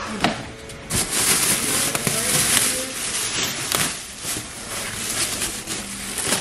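Thin plastic wrapping crinkling and rustling as it is pulled open around a wheel in a cardboard box. It starts loud about a second in and settles into lighter handling rustles with small knocks.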